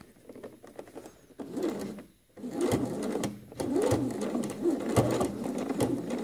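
Domestic sewing machine stitching in short runs, starting about a second and a half in and stopping briefly twice as the fabric is guided. It is topstitching the edge of a shirt collar.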